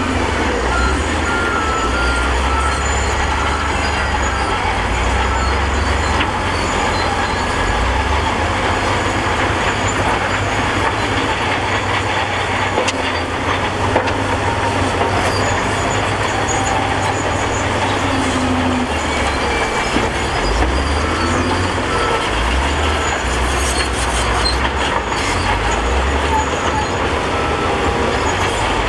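SDLG wheel loader's diesel engine working, its low rumble swelling and easing every few seconds as it pushes and scoops broken rock, with a sharp knock about halfway through.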